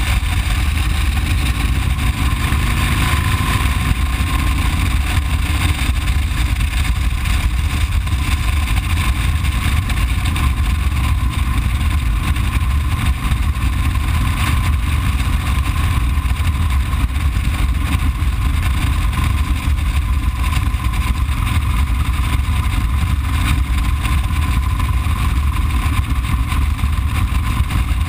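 Motorcycle cruising at steady speed: a constant low engine rumble mixed with wind rushing over a bike-mounted microphone.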